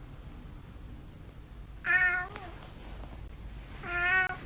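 Domestic cat meowing twice, two short calls about two seconds apart, answering a person who asks it to say hello.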